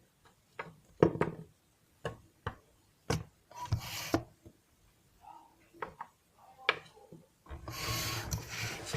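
Small plastic toy figures being handled and set down on a hard surface: a series of scattered clicks and knocks, then rubbing and scraping near the end.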